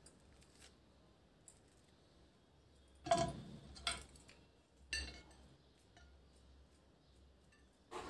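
A knife and a mandarin knocking and clinking against a glass baking dish as the fruit is peeled: a few light, separate clinks about three to five seconds in, and one more near the end.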